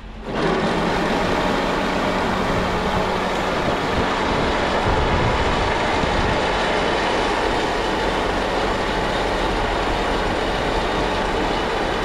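A John Deere 6195R tractor and its Kaweco silage wagon unloading chopped maize: a steady mix of engine noise and the wagon's PTO-driven discharge rollers turning behind the open rear door.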